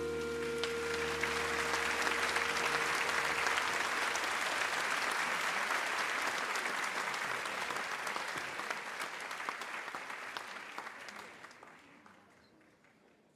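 Audience applauding, with the last held chord of the song dying away under it in the first few seconds. The applause fades out over the last few seconds.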